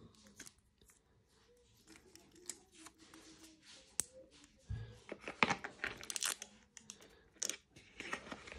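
A metal mesh watch band and watch case being handled over a cardboard box: scattered clicks, scrapes and rustles, busier in the second half, with one sharp click about four seconds in.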